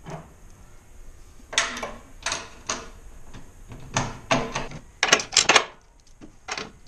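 3/8-inch bolts clicking and knocking in a series of short, irregular taps as they are pushed down through the mounting holes of the auxiliary fuel tank and truck bed.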